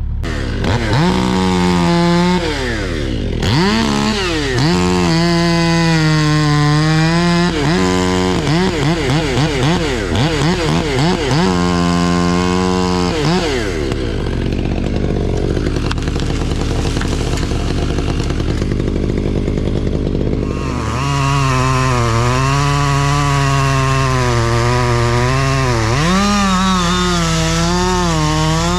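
Stihl MS 500i fuel-injected two-stroke chainsaw running hard and cutting wood, its pitch rising and falling under the throttle, with a run of quick throttle blips in the first half. It eases off for several seconds in the middle, then is held at high revs again with the pitch wavering under load.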